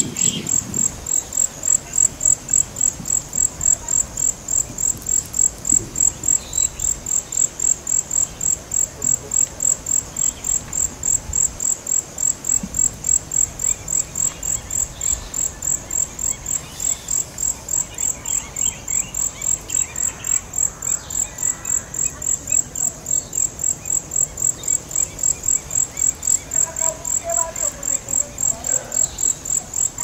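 An insect chirping in a fast, even rhythm of high-pitched pulses, about three a second, with faint bird calls behind it in the second half.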